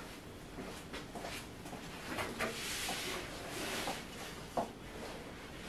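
A person settling in at a work counter: clothing rustles and a few light knocks and bumps sound, one a little louder near the end.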